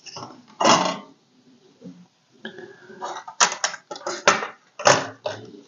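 Hard plastic and metal computer parts knocking and scraping against each other and the wooden bench as a Gotek floppy emulator in its drive case and a Commodore 1581 drive board in its metal frame are handled. There is a longer scrape just under a second in, then a quick run of sharp knocks and clatters from about three to five seconds.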